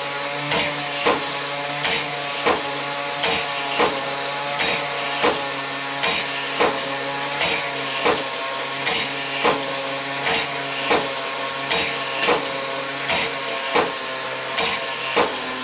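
Roullet & Decamps bear drummer automaton beating its drum and clashing its cymbals in a steady mechanical rhythm, about three strikes every two seconds. A steady whirr from its mechanism runs underneath.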